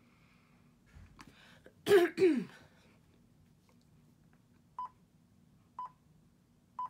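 A woman clears her throat twice about two seconds in. Near the end come three short, high beeps a second apart: iMovie's voiceover countdown before recording starts.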